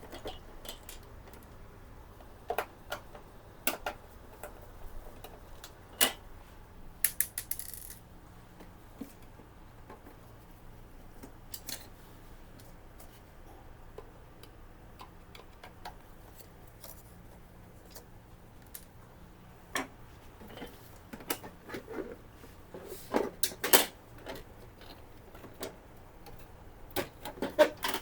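Scattered light clicks and knocks of a screwdriver and the plastic housing of an HP Ink Tank 415 printer being handled as its four cover screws are taken out. There is a short high rattle about seven seconds in and a busier run of knocks later on.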